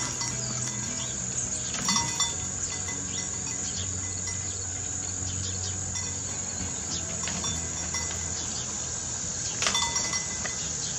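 Steady outdoor insect calling, high and unbroken, with soft rustles of paper as a large picture book is handled and its pages turned, once about two seconds in and again near the end.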